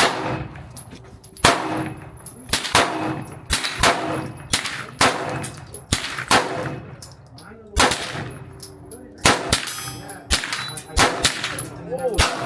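Gunshots on a shooting range, about a dozen sharp cracks at irregular intervals, several close together near the end. After many of them comes a lingering metallic ringing clang.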